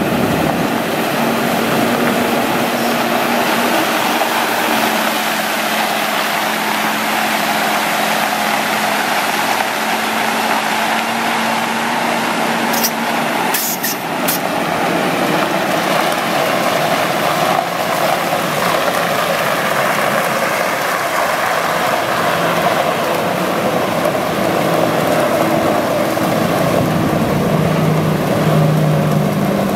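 Freightliner M2 water truck's diesel engine running while its spray heads pump water out onto gravel, a steady heavy hiss of spray over the engine. A couple of brief clicks come about halfway through, and the engine grows louder near the end.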